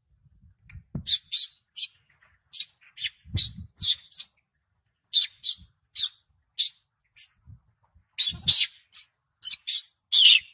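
A young macaque making some twenty short, high-pitched squeaks in quick runs, with a few soft low thumps between them.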